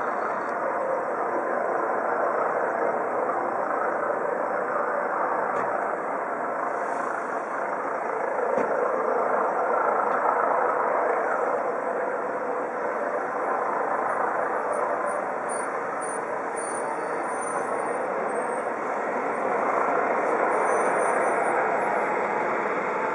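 Eurocopter EC 135 helicopter flying low: a steady rotor and turbine noise that swells a little twice.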